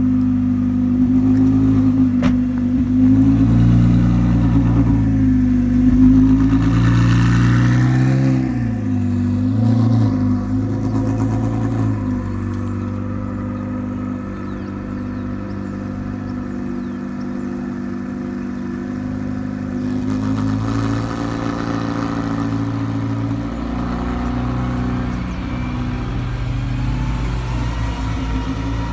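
Ferrari Challenge race car's V8 revving in short rises and falls as it pulls away, then running steadier and quieter as it drives off down the street.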